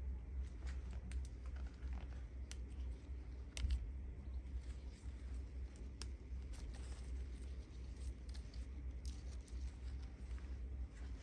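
Dalle khursani (round chili) peppers being snapped off the plant by hand: irregular small snaps and clicks, roughly one a second, over a steady low rumble.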